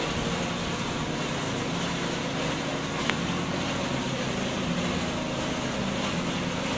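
Electric sander motor running steadily against a fibreglass speedboat hull, smoothing the filler-coated body before painting. A single short click sounds about three seconds in.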